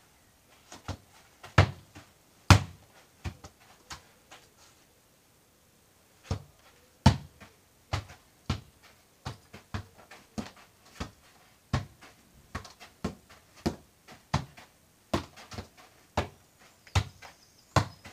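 A football being kicked repeatedly in keepy-uppy juggling, a dull thud at each touch of the foot. A few scattered kicks come first, then a short pause, then a steady run of about two touches a second.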